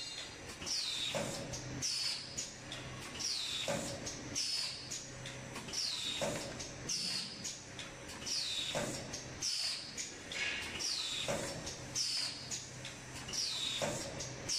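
Paper tray forming machine running through its cycle: high squeaks falling in pitch about once a second, and a press stroke with a short knock about every two and a half seconds, over a steady low hum.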